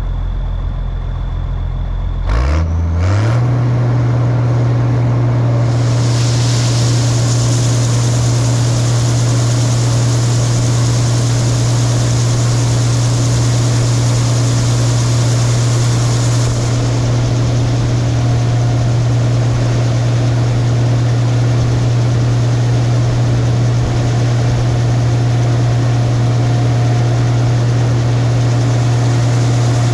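Case IH combine engine throttling up about two seconds in, its drone rising in pitch and then holding steady at high speed. From about six seconds a steady hiss joins as the unloading auger runs dry shelled corn out of the full grain tank.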